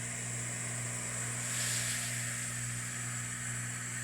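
Hot air rework station blowing steadily: an airy hiss over a low, even hum, briefly louder about a second and a half in.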